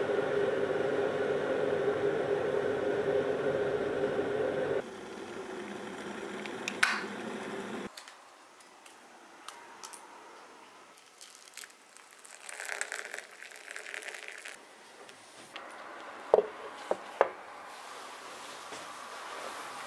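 A steady hum that drops in level about five seconds in and stops about eight seconds in. Then a quiet room with light handling sounds, a short rush of noise about thirteen seconds in, and a few sharp clinks near the end.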